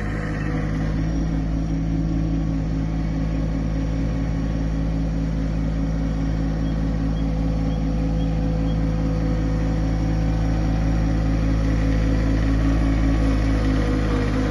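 Yanmar SA24 compact utility tractor's three-cylinder diesel engine running steadily.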